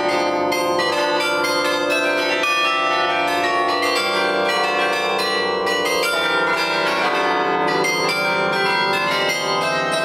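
Carillon of bronze tower bells playing a tune: many bells struck in quick succession, their notes ringing on and overlapping.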